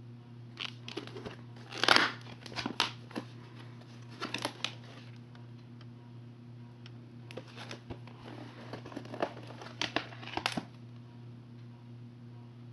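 Plastic VHS clamshell case being handled and opened and the cassette taken out: crackling plastic rustles and clicks in three bouts, the loudest about two seconds in.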